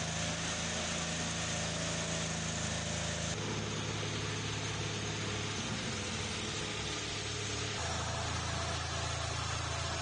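Firewood processor's Kohler gasoline engine running steadily, its sound shifting abruptly about three and a half seconds in and again near eight seconds.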